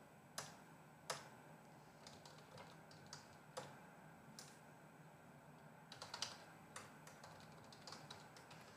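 Typing on a computer keyboard: faint, irregular keystrokes with a short flurry about six seconds in.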